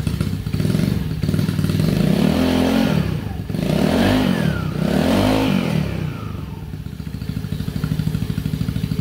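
The single-cylinder four-stroke GY6 engine in a Honda Ruckus idles, is revved three times in quick rises and falls about two, four and five seconds in, then settles back to idle. It drives the rear wheel through an open, uncovered CVT belt and pulleys.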